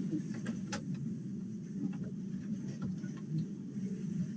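A few faint, sharp clicks of small laptop parts being handled during reassembly, over a steady low hum.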